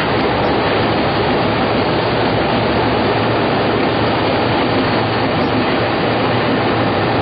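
Baby diaper production machine running: a steady, dense mechanical rush with a low hum underneath.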